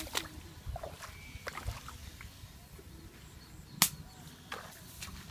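Scattered small clicks and knocks over a low rumble, with one sharp crack just under four seconds in.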